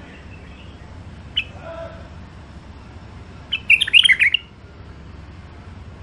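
White-eared bulbul calling: a single sharp note about a second and a half in, then a short, fast phrase of several high notes about two seconds later, the loudest sound.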